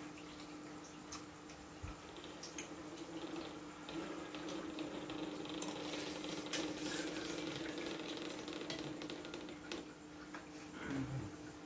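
Metal spoon clinking and scraping in a stainless steel bowl of macaroni soup, with slurping of the broth from the spoon midway through, over a steady hum.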